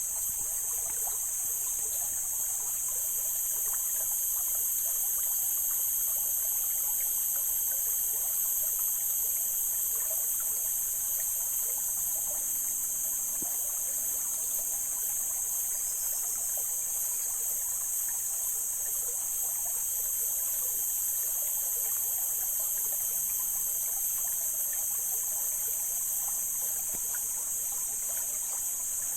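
Mountain stream flowing and trickling over rocks, steady throughout, under a continuous high-pitched insect chorus that is the loudest sound.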